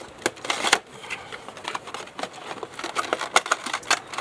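Packaging of a boxed action figure being opened and handled: a string of small clicks, taps and rustles, with a louder rustle about half a second in.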